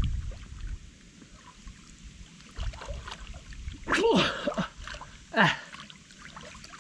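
Water splashing and sloshing, with two loud exclamations from a voice, each falling in pitch, about four and five and a half seconds in.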